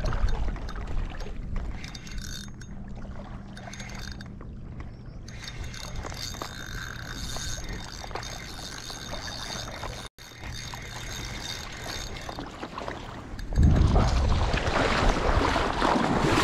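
Fishing reel being wound in while a hooked bass is played, its gears whirring over steady wind and sea noise. About three seconds before the end a much louder rush of wind and surf comes in.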